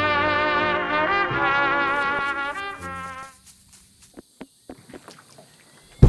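Brass music, trumpets and trombones playing a tune with vibrato, which dies away a little over three seconds in. Then come a few faint clicks, and a sudden loud thump right at the end.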